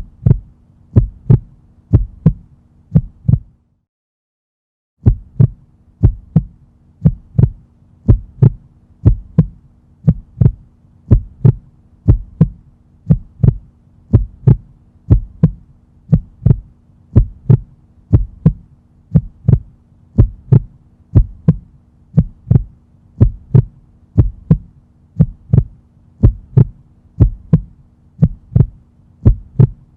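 A heartbeat: paired lub-dub beats at a steady pace of about one a second, over a faint steady hum. The beats stop for about a second and a half near four seconds in, then resume.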